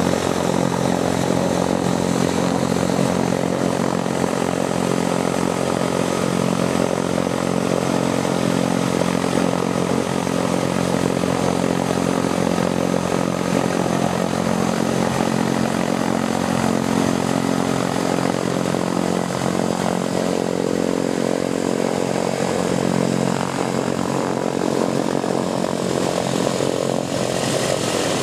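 Twin PT6A turboprop engines of a Beechcraft Super King Air 200 running on the ground, a steady propeller drone with several fixed tones, as the aircraft begins to taxi away.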